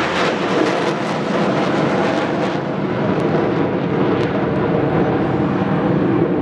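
Jet engine noise from a formation of ROKAF Black Eagles KAI T-50B Golden Eagle jets, each with a single General Electric F404 turbofan, flying an aerobatic display overhead: a loud, steady rush of engine noise.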